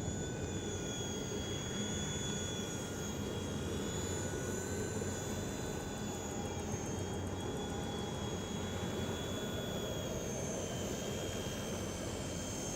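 WLtoys V911 micro RC helicopter in flight: a steady high electric-motor whine with rotor buzz, its pitch wavering slightly as the throttle changes.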